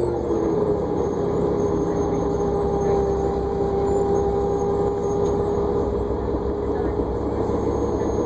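New Flyer D40LFR diesel bus in motion, heard from inside the cabin: a steady whine holds at one pitch over a low engine and road rumble.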